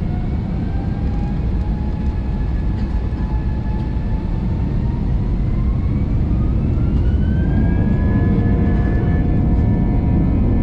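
Airbus airliner's jet engines spooling up for takeoff, heard from inside the cabin: a whine rises in pitch between about four and eight seconds in and then holds, over a steady heavy rumble.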